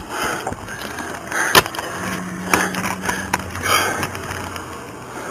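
Handling noise on a body-worn camera as an officer moves with a rifle held against it: clothing and gear rubbing and rattling, with a sharp knock about a second and a half in.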